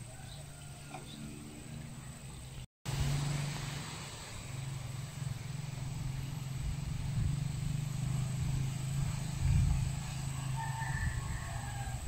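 A steady low hum, with a rooster crowing faintly near the end. The sound cuts out briefly a little under three seconds in.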